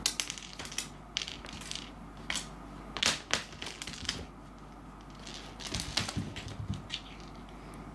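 A hard dried persimmon seed skittering and clicking across a wooden floor as a cat bats it with its paws, in uneven clusters of rapid taps with the loudest knocks about three seconds in and another run near six seconds.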